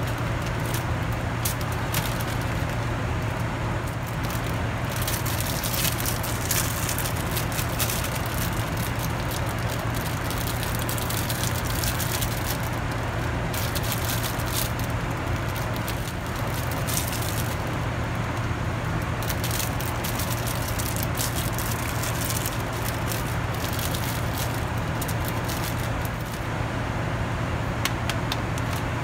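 Steady roar of an airliner cabin in flight, with a strong low hum underneath, while plastic food packaging crinkles and crackles in short bursts as it is handled.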